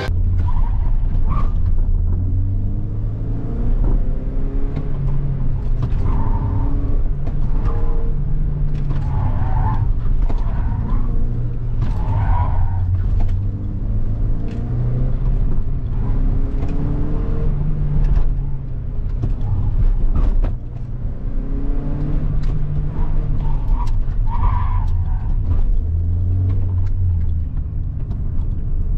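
Volkswagen Golf street car driven hard through a slalom course. The engine revs up and falls back again and again as it accelerates and brakes between obstacles, and the tyres squeal briefly several times in the turns.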